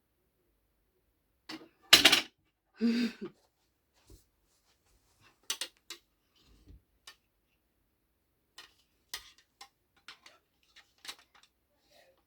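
Plastic Lego pieces being handled and set in place: scattered short clicks and taps, with two louder clattering knocks about two and three seconds in.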